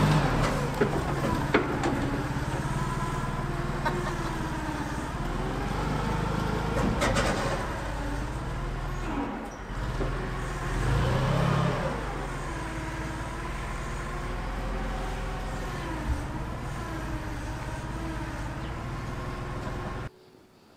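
A Clark forklift's engine runs as the forklift drives and manoeuvres, its pitch rising and falling with the throttle. There are a few short knocks along the way, and the sound cuts off suddenly near the end.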